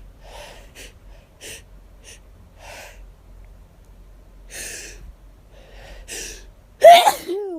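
A string of short breaths and sniffs, then one sudden, loud hayfever sneeze near the end.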